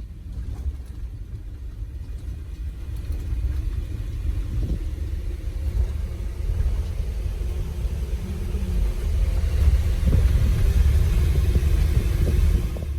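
Low, steady rumble of a running vehicle, growing louder over the last few seconds.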